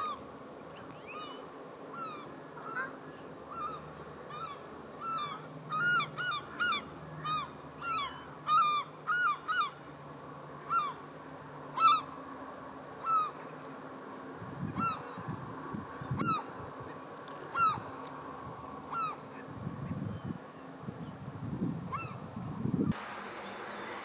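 Geese honking: a run of short calls that rise and fall in pitch, one or two a second, busiest in the first half and thinning out toward the end.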